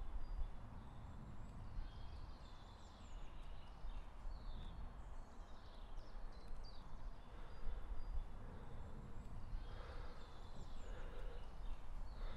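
Woodland ambience: scattered short bird chirps and calls over a low, steady background rumble.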